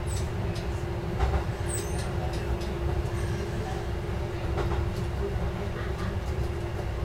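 KiHa 11 diesel railcar running along the track, heard from the cab: a steady diesel rumble with a held hum, and a few sharp clicks from the wheels and track.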